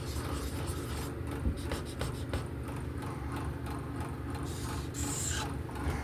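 Repeated rubbing or scraping strokes of something drawn across a surface, over a steady low hum, with a brief brighter hiss about five seconds in.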